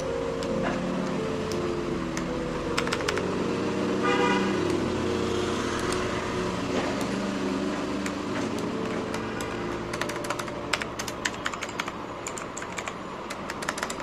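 Mechanical keyboard with blue switches clicking as keycaps are pressed down onto them, in quick irregular runs that pick up in the last few seconds, over soft background music.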